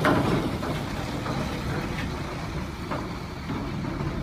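A heavy diesel dump truck's engine running with a steady low rumble, with a few faint knocks.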